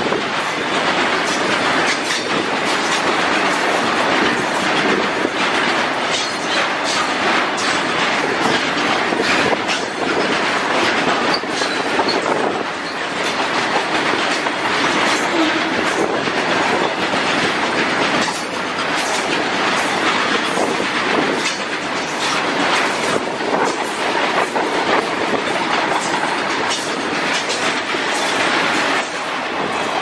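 Loaded BTPN oil tank wagons rolling past close by, their wheels clattering steadily over the rail joints, with now and then a wheel squeal as they take the curve.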